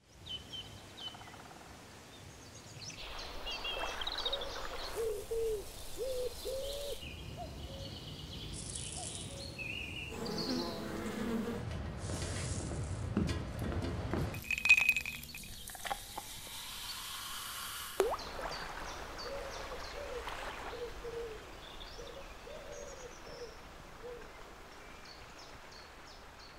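Layered countryside ambience of birdsong and buzzing insects. In the middle it gives way to a louder stretch of rushing, rumbling working noise, with a single sharp knock about eighteen seconds in, and birdsong comes back after it.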